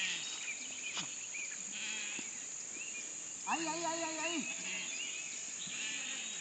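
A goat bleats once, a long call of about a second, a little past halfway through. Faint short chirps and a steady high-pitched hiss sound throughout.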